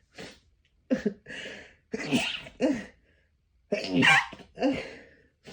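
A person sneezing forcefully several times in quick succession, about five loud voiced sneezes with short pauses between them.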